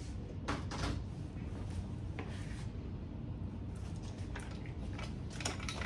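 Soft rustles and brushing strokes of hair being handled and smoothed on a mannequin head, about eight short strokes at irregular intervals over a low steady hum.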